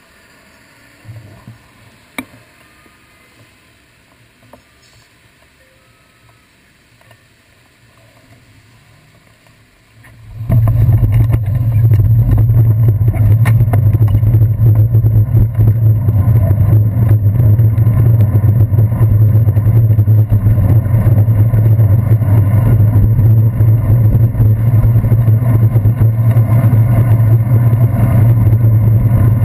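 Muffled, quiet street sound through a cased action camera, with a couple of light clicks a second or two in; about ten seconds in, a loud steady low rumble of wind and road vibration on the handlebar-mounted camera sets in abruptly as the bicycle gets moving, and keeps on.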